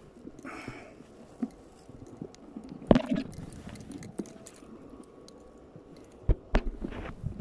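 Close handling noise: short rustles and scattered knocks, the loudest about three seconds in and two sharp ones near the end.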